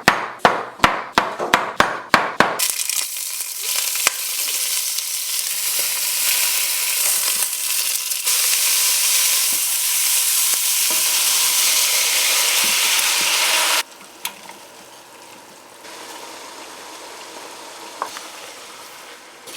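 A quick run of about eight sharp taps, then food sizzling loudly as it fries in a hot pot. The sizzle cuts off suddenly near the end, leaving a faint sizzle.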